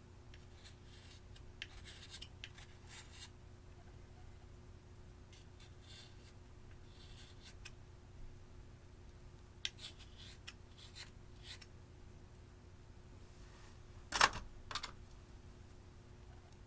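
Slime being worked by hand: soft, sticky crackles, clicks and rubbing strokes come at irregular intervals, with one sharp, much louder pop and a smaller one just after it, about fourteen seconds in.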